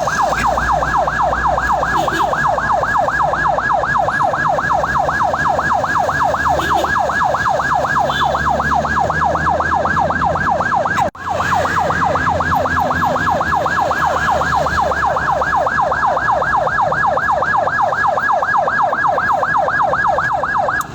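Ambulance siren in fast yelp mode, a loud wail sweeping rapidly up and down several times a second, with a brief break about halfway through.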